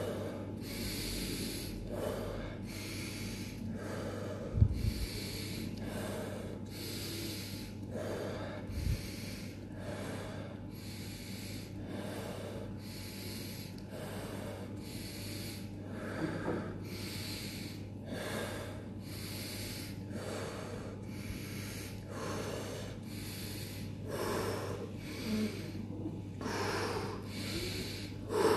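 A man breathing deeply and forcefully in and out through the mouth in a quick, even rhythm: a round of pranayama power breaths counted toward 35 before a breath hold. A steady low hum runs underneath, and there is a single low thump about four and a half seconds in.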